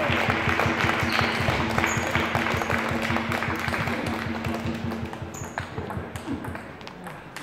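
Table tennis ball being struck back and forth in a rally, sharp clicks off the bats and table over a dense patter of further clicks. A steady low hum runs underneath and stops about five seconds in.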